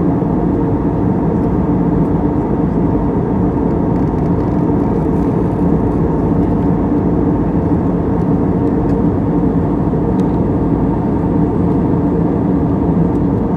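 Jet airliner cabin noise in cruise flight: a steady low roar of engines and airflow with a faint hum, heard from inside the cabin by a window seat.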